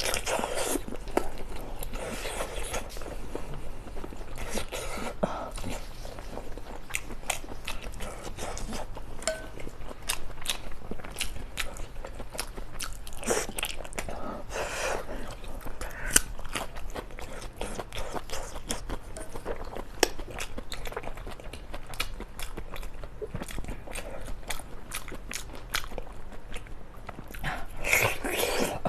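A person eating close to the microphone: biting and chewing, with many short, irregular crunches and clicks.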